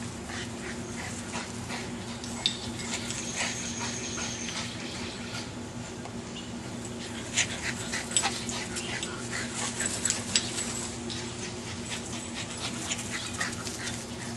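Boston terriers playing chase: scattered quick clicks and scuffles with dog whimpers, over a steady low hum.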